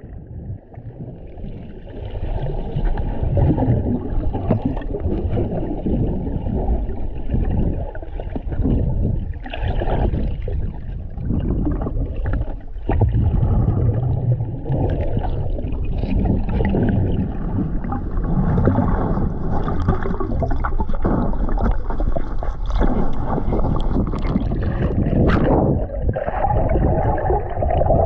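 Muffled underwater noise picked up by a submerged action camera while a breath-hold diver swims through a spring's underwater passage: a dull, steady rumble of moving water and bubbles, with a few sharp knocks.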